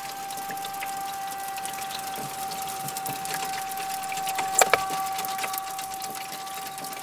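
Gloved hands working petroleum jelly into a new rubber water-pump impeller: soft sticky squishing and small clicks, with two louder clicks about two-thirds of the way in. A steady whine runs underneath.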